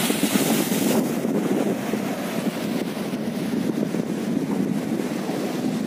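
Wind buffeting the microphone over the steady rush of sea surf breaking against a rock seawall.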